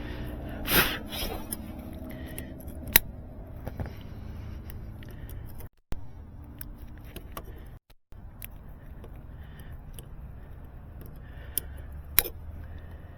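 Tools and small hardware being handled: scattered clicks and rustles over a low steady hum, with a sharp click about three seconds in and another near the end. The sound cuts out briefly twice in the middle.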